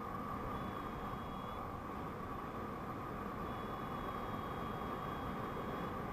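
Steady rush of airflow over the microphone of a paraglider pilot's camera in flight. A faint, thin high tone comes in twice: about a second long near the start, and about two seconds long in the second half.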